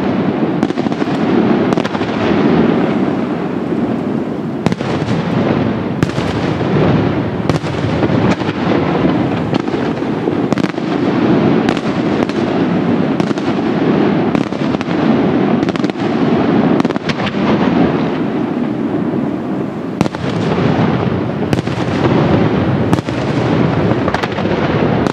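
Fireworks display going at full intensity: a continuous dense barrage of shell bursts that blends into a steady rumble, with sharper reports standing out about once or twice a second.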